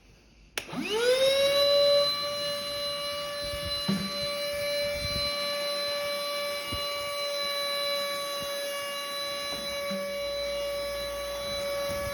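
An ash vacuum cleaner switched on: its motor whine rises quickly in pitch about half a second in, then runs steady, with occasional low knocks.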